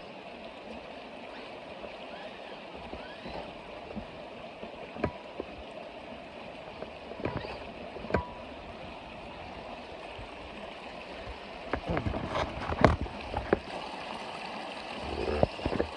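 Creek water running steadily, with a few sharp splashes and knocks; these come thicker and louder about twelve to thirteen seconds in.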